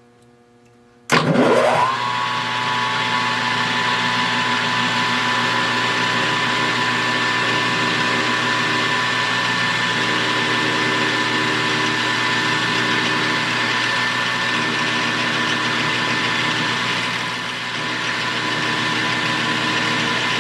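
Metal lathe switched on about a second in, its spindle and motor whining up to speed and then running steadily with a high whine. The level dips briefly near the end.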